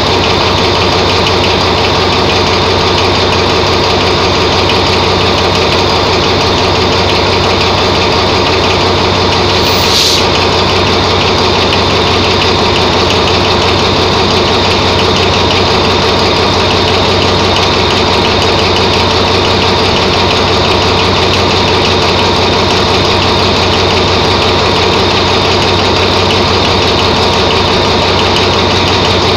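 Diesel locomotive engine idling at standstill: a steady, loud, unchanging run. A short, high hiss cuts in about ten seconds in.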